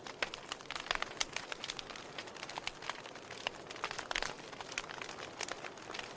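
Wood fire burning, with a soft steady hiss and frequent irregular sharp crackles and pops.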